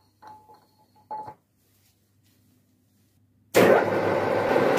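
A few light metallic clinks with a short ring as a tapered steel arbor is fitted into the lathe spindle. About three and a half seconds in, the lathe's loud steady running noise cuts in abruptly.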